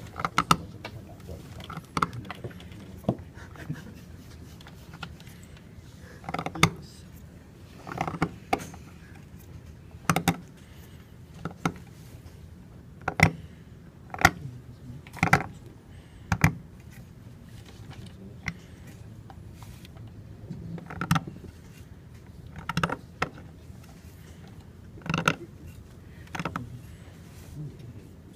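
Steel carving knife cutting into a seal stone clamped in a wooden seal vise: short, sharp scraping strokes and clicks at an uneven pace, roughly one every second or two.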